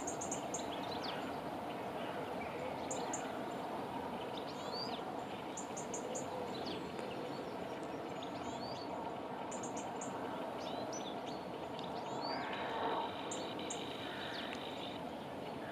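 Songbirds singing at dawn: many short high chirps and quick whistled sweeps, with a louder trilled phrase about twelve seconds in, over a steady background hum.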